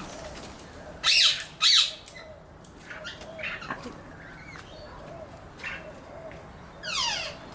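Butcherbirds calling: two loud, harsh squawks about a second in, quieter short calls in the middle, and another harsh call with quickly falling notes near the end.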